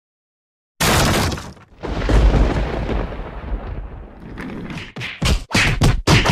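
Cartoon sound effects: a sudden loud crash about a second in, a second crash around two seconds in that fades slowly, then a quick run of short, sharp bangs near the end.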